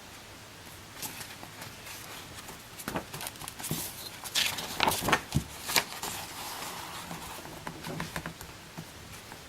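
A picture book being handled and its pages turned: irregular light taps and short rustles.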